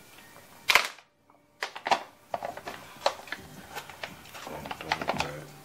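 A foil freeze-dried meal pouch being pulled open by hand: a sharp snap of the seal coming apart about a second in, then the stiff foil crinkling and crackling as it is spread open.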